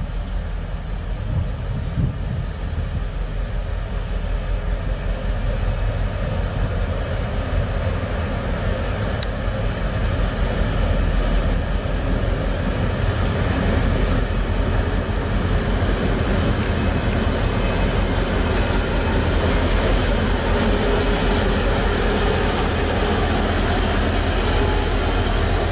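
Rail Polska diesel locomotive's engine running steadily as the locomotive moves slowly through the station, growing louder over the first dozen seconds and then holding.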